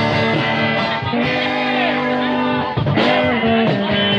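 Live band music: an instrumental passage between sung lines, with guitar to the fore.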